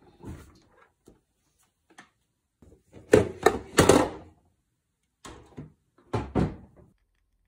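Refrigerator door being opened and shut, with a string of knocks and rattles from things in its door shelves being handled, the loudest about three to four seconds in.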